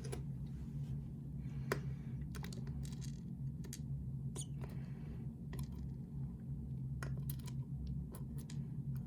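Small metal lock parts clicking and scraping irregularly as the pins are handled and taken out of a disassembled lock core, over a steady low hum.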